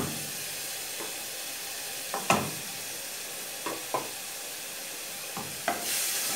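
Grated onion sizzling in melted margarine in a saucepan, with a wooden spoon knocking and scraping against the pan several times. The sizzle grows louder near the end as the onion is stirred.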